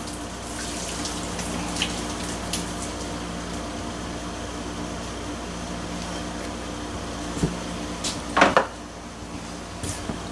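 Water pouring into a kitchen sink as a pot of cooked pasta is drained. A few metal clanks from the pot about eight seconds in.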